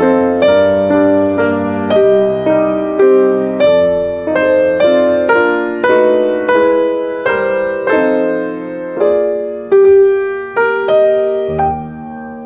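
Solo piano music, gentle and unhurried: notes struck about twice a second over shifting chords, each note fading after it is struck.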